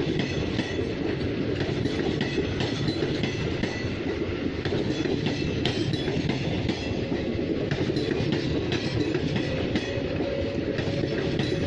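Express train passing at speed, its wheels running over rail joints and points: a steady rumble with rapid irregular clicking. A thin steady whine, like wheel squeal, comes in near the end.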